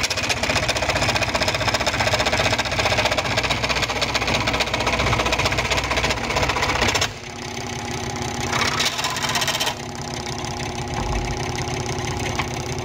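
WEN scroll saw running and cutting a piece of wood at an angle on its tilted table, the blade's rapid up-and-down chatter. About seven seconds in the sound drops suddenly and runs on quieter and steadier.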